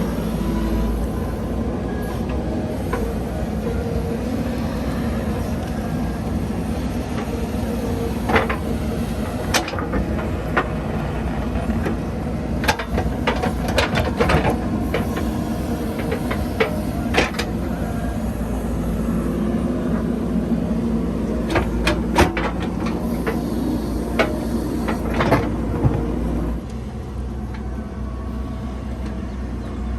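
JCB 3DX backhoe loader's diesel engine running steadily, with many scattered sharp knocks through the middle. The engine sound steps down in level near the end.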